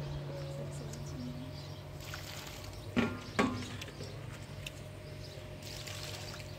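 Soup being scooped and poured with a plastic jug in a large aluminium cooking pot, with two sharp knocks about three seconds in, half a second apart, over a steady low hum.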